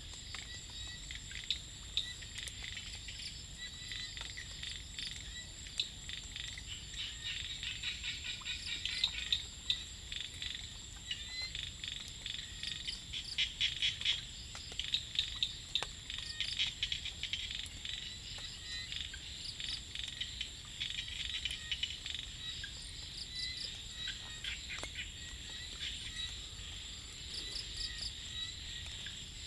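Rice-paddy chorus of small frogs and insects. A steady high insect trill runs under rapid clicking calls that come in bouts, thickest from about a quarter to halfway through.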